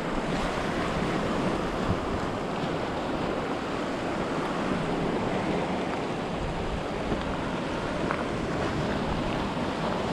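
Sea surf washing over and around rocks, a steady rushing with wind on the microphone.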